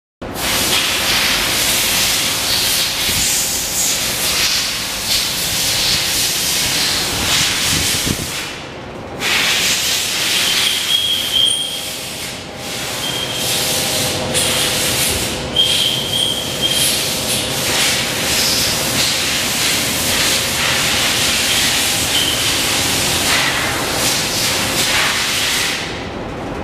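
Large shop drum fan blowing, a loud steady rush of air with a faint motor hum. The rush dips briefly a few times, deepest about nine seconds in.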